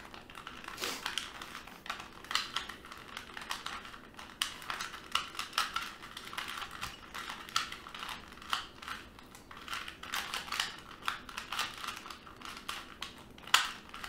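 Plastic 2x2 Rubik's cube being turned by hand: an irregular run of quick clicks and clacks as its layers are twisted, with one sharper click near the end.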